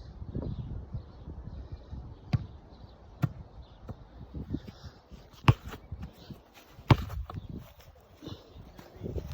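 Ball being kicked and bouncing: a handful of sharp thuds, the two loudest about five and a half and seven seconds in.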